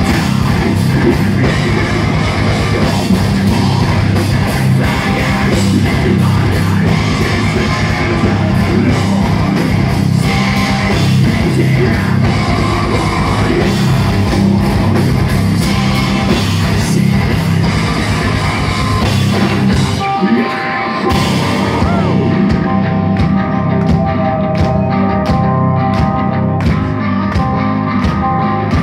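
Live heavy metal band playing loud: distorted electric guitars, bass and drum kit, with a singer's vocals. About twenty seconds in the music breaks off briefly, then goes on with steady drum beats under held guitar notes.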